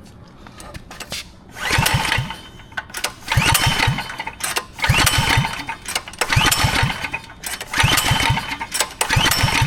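Predator 212cc single-cylinder mini-bike engine being pull-started with the choke on: six recoil-starter pulls about a second and a half apart, each a rope whir with the engine cranking over briefly. It does not catch.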